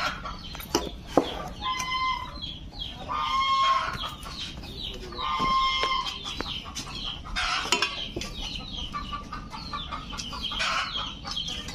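Poultry calling on and off, repeated clucking with several longer honk-like calls, over a few sharp knocks and scrapes of a digging bar on broken stone and soil, the loudest knock about a second in.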